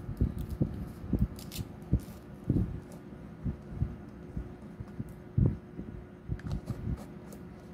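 Hands handling a small plastic glue pot and unscrewing its cap: irregular low bumps and knocks with a few light plastic clicks, over a steady low hum.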